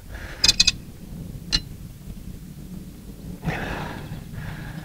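A few sharp metallic clicks from a torque wrench and obstruction spanner working a cylinder-head bolt nut as it is retorqued, a quick cluster about half a second in and one more about a second later. A brief soft hiss follows about three and a half seconds in.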